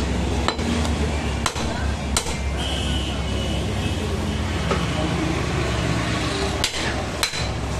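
Heavy butcher's cleaver chopping beef on a wooden chopping block: about five sharp knocks, three in the first couple of seconds and two close together near the end. Steady street traffic rumbles underneath.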